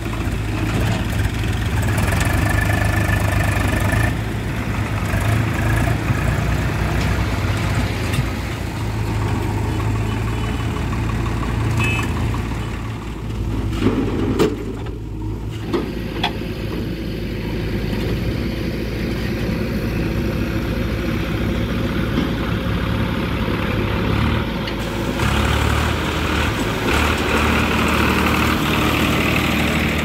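Diesel engines of a JCB 3DX backhoe loader and a Swaraj 735 FE tractor running steadily while the backhoe loads soil into a steel tractor trolley. A few sharp knocks come around the middle as soil and clods drop into the trolley, and the engine note shifts near the end.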